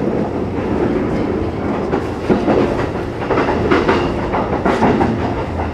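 Running noise of a Sanyo Electric Railway 6000 series electric train heard inside the passenger car: a steady rumble of the train on the rails, with wheels clicking over rail joints a few times.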